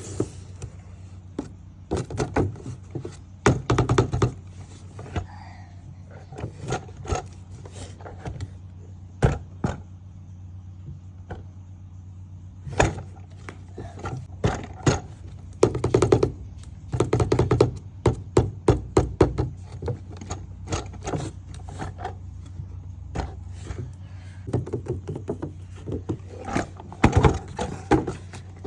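Hands handling a toy RC car's box and packaging: irregular taps, knocks and scrapes, in clusters, over a steady low hum.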